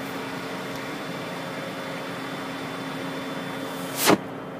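Steady machine hum with a few level tones under a light hiss, broken about four seconds in by a short loud rushing burst, after which the hiss drops away.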